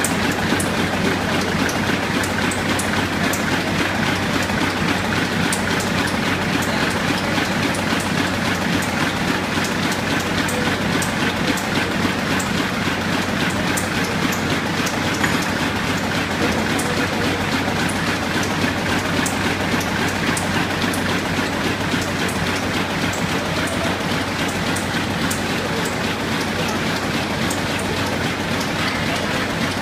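Web stacker for web offset output running at speed: a steady mechanical clatter of belts and rollers with a patter of small ticks as printed sheets stream along its conveyor, over a steady low hum.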